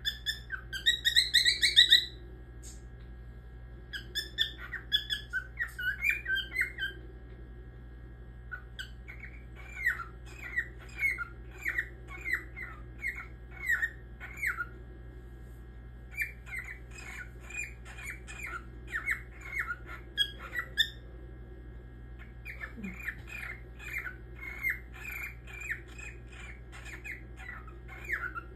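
Grey cockatiel calling: runs of short, sharp chirps, about two a second, broken by short pauses. The loudest and harshest burst of calls comes in the first two seconds.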